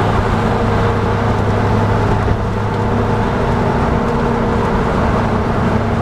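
Steady road and engine noise inside a car's cabin at freeway speed, with a constant low hum under the tyre noise.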